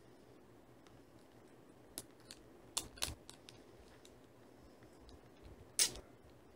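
A few short, sharp clicks about two to three and a half seconds in, then one louder, brief rustle-like scrape near the end: small handling noises close to the microphone.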